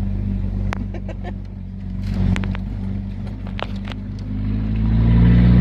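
Pickup truck engine running, heard from inside the cab, with scattered light clicks and knocks of rattles. About four and a half seconds in the engine gets louder and rises in pitch as the truck accelerates.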